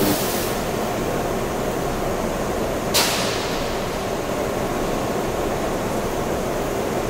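Electric arc furnace running: a loud, even noise with no clear pitch, broken by one sharp crack about three seconds in.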